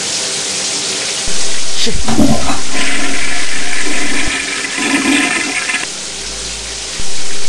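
A toilet flushing: a loud rush of water that surges a little over a second in, eases after about four seconds, and swells again near the end.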